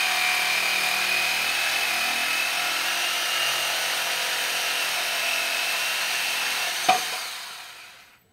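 Power tool running steadily with a high whine, used on the brake line of a homemade spray gun. A click sounds near the end as it is switched off, and the noise dies away over about a second.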